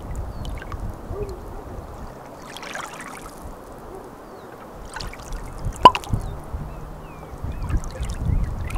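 Humpback whale song: scattered moans and squeaky rising and falling calls over a wash of underwater noise, with one loud upward-gliding call about six seconds in.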